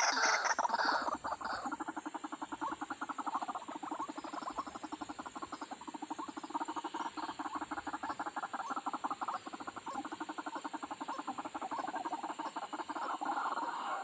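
White-breasted waterhen calling: a fast, even run of short, rapidly repeated notes lasting many seconds, with louder, rougher calls at the start and again near the end.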